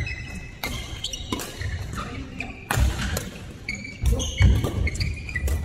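Badminton rally in a large, echoing sports hall: sharp racket strikes on the shuttlecock roughly a second apart, with sneakers squeaking briefly on the court floor and footfalls thudding.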